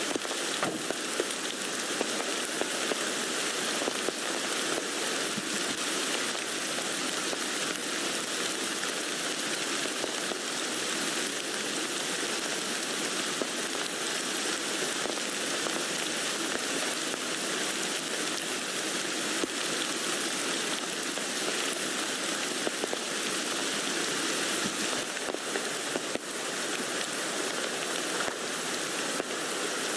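Steady rain falling on a tent, an even dense hiss of many drops with small separate ticks throughout.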